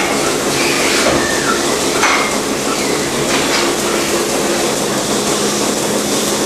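Milking parlour machinery running: a steady hiss and hum from the milking system, with scattered metallic clinks and clatter.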